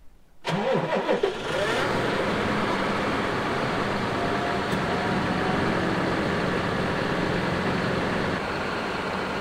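John Deere tractor's diesel engine cold-starting: it catches about half a second in, its revs flare up and fall back over about a second, then it settles into a steady idle.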